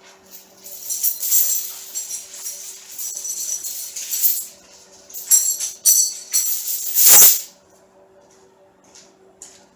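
Loose metal jingling and clattering in bursts, like chain links or keys being shaken and handled, ending in one loud clatter about seven seconds in. A faint steady hum runs underneath.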